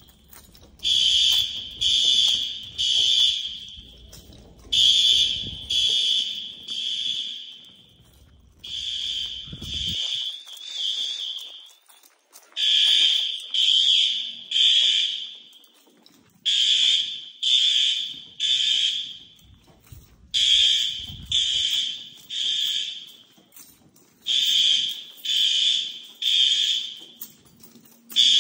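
Fire alarm horns sounding the temporal-three evacuation signal during a fire drill: three short, shrill blasts, a pause, then again, repeating about every four seconds.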